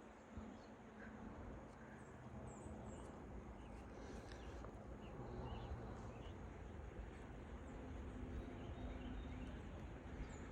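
Faint outdoor ambience: a low wind rumble on the microphone, with a few short, high bird chirps scattered through it.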